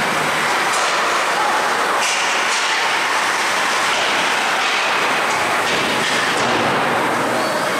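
Ice hockey game in progress in a rink: a steady rushing hiss, with a few short scrapes and clacks from skates and sticks on the ice.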